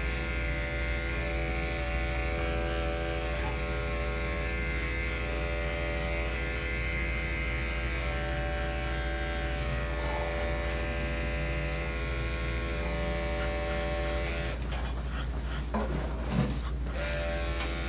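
Electric dog grooming clipper running with a steady hum as it clips a dog's coat. About three-quarters of the way through the hum stops, and a few short knocks and rustles follow.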